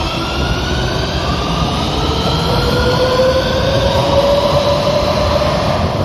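Madrid Metro train pulling away. Its traction motors whine, with several tones rising steadily in pitch as it gathers speed, over a low rumble of wheels on rails.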